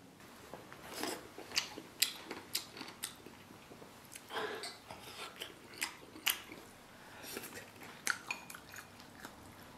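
People chewing and smacking their lips while eating soft slices of braised pig's head meat, with light clicks of wooden chopsticks against porcelain bowls. The clicks and smacks come in short, irregular bursts.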